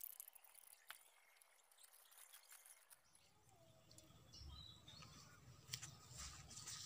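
Near silence: faint outdoor ambience with a few faint clicks in the first three seconds, then a low rumble like wind on the microphone from about three seconds in, and one faint short bird call.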